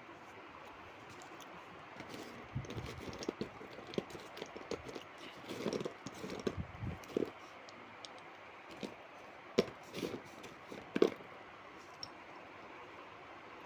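Light clicks, knocks and rustling of clay items and their packing being handled during unpacking, irregular and busiest from about two to eleven seconds in, ending with a sharper click.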